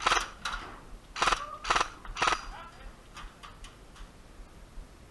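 Short bursts of automatic fire from an ARP9 electric airsoft gun, five quick rattling bursts in the first two and a half seconds, followed by a few faint clicks.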